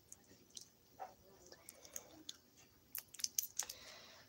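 Small plastic candy wrapper crinkling and crackling under the fingers as it is picked at to get it open, with a cluster of sharper crackles about three seconds in.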